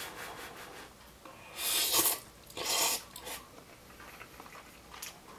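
A person slurping instant cup noodles off chopsticks: two short hissing slurps about a second apart, each around half a second long, followed by a few faint clicks.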